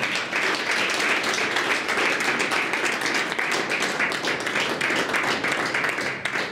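Audience applauding: many people clapping together, a dense patter that tails off near the end.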